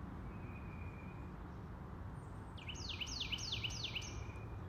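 A bird calling: about halfway in, a quick run of about five falling whistled notes, about three a second, over a low steady outdoor background hum.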